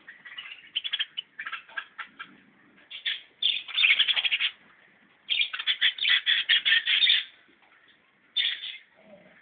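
A bird singing in rapid trills of sharp, quickly repeated chirps, about ten notes a second, in several bursts of one to two seconds with short pauses between.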